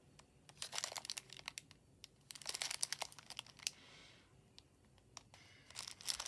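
Small plastic bags of beads crinkling as they are handled, in three short spells of faint crackling: about a second in, around the middle, and near the end.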